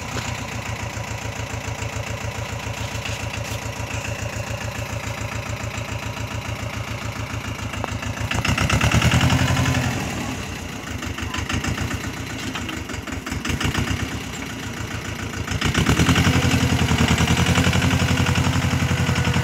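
Mahindra Jivo 245 DI tractor's two-cylinder diesel engine running with an even beat while pulling a tine cultivator through the soil. It grows louder about eight seconds in, wavers, and swells again near the end.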